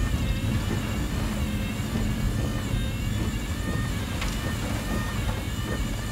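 Inside a small Jeep driving up a wet road in heavy rain: steady low engine and road rumble, with tyre spray and rain on the windscreen. There is a single short click about four seconds in.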